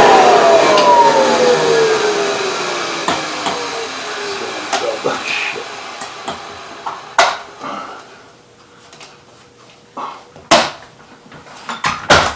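Vacuum cleaner motor winding down after being switched off, its whine falling steadily in pitch and fading over the first few seconds. Several sharp knocks and clanks of the machine being handled follow, from about halfway through.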